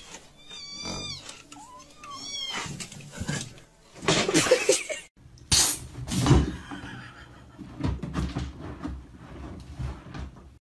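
A domestic cat meowing twice, two short high-pitched calls that bend and fall in pitch, followed by rustling and knocks.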